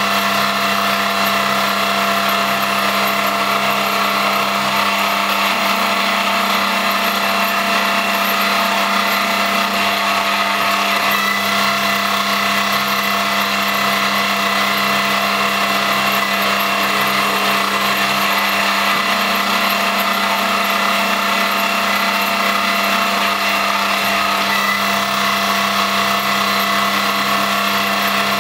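Homemade CNC lathe built on an X3 milling machine, running steadily: a continuous motor hum and whine made of several steady tones, with the low hum shifting slightly a few times.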